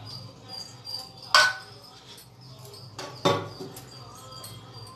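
Two sharp knocks about two seconds apart. Behind them a small bird chirps repeatedly, short falling chirps about three a second, over a faint low hum.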